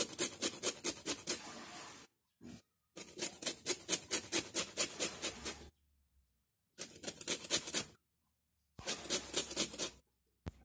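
A lemon rasped against a flat metal hand grater to take off the rind: quick scraping strokes, about four a second, in four runs with short pauses between.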